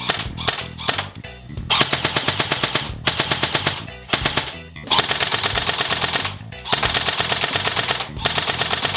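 Jing Gong M16A4 electric airsoft rifle firing on full auto: its metal gearbox and high-torque motor cycle in rapid, even bursts about a second long, with short gaps between bursts.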